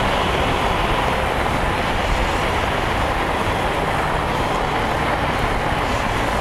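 Steady rush of wind and road noise from a Honda CB750 motorcycle cruising at speed on a wet road, its air/oil-cooled inline-four engine running under the wind.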